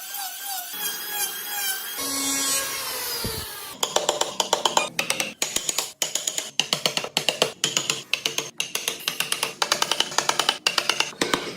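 Background music: a falling sweep about two seconds in, then a steady drum beat with cymbals starting near the four-second mark.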